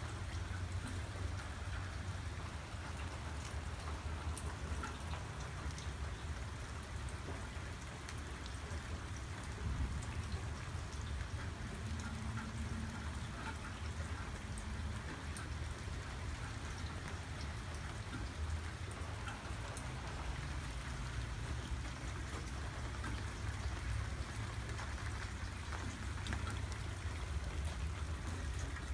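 Steady rain falling, the patter of drops on pavement and gravel with many small individual drop ticks. The rain is not heavy.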